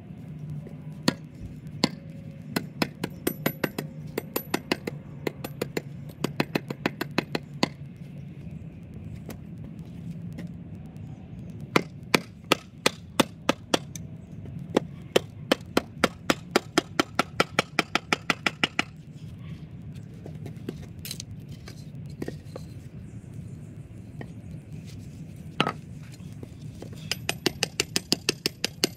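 Rapid runs of sharp knocks as a blade and mallet strike and chop into a split length of wood, several strokes a second with short pauses between runs, over a steady low hum.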